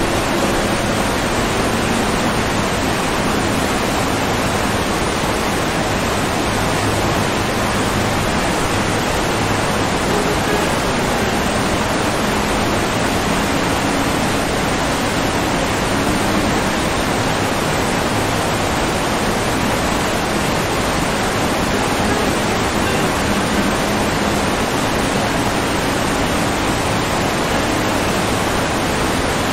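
Steady, unbroken rush of water, like a waterfall, with no pauses or changes.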